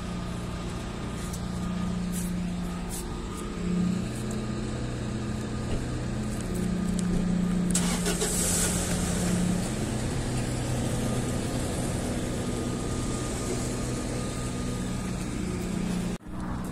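Car engine running steadily, a low hum that wavers slightly in pitch, with a short burst of hiss about eight seconds in.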